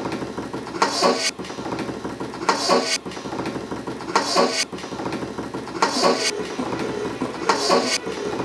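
Percussive beat of paired metallic clanking hits, the pair repeating evenly just under every two seconds over a sustained backing, like a background music loop.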